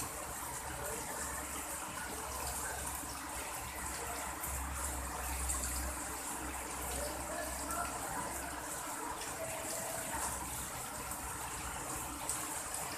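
Heavy rain falling steadily, splashing on a wet concrete ledge: an even hiss with faint scattered drop ticks.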